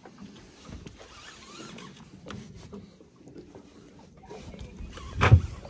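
Rod and conventional reel being worked against a hooked sturgeon: scattered clicks and rubbing from the reel and tackle, then a single loud thump about five seconds in.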